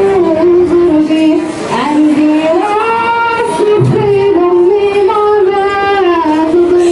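A young female voice singing a slow melody with long held, wavering notes.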